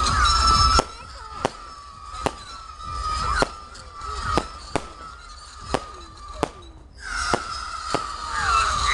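Fireworks display: an irregular series of sharp bangs from bursting shells, roughly one every half second to second, over a steady high whistle and several short falling whistles. Near the end it grows louder.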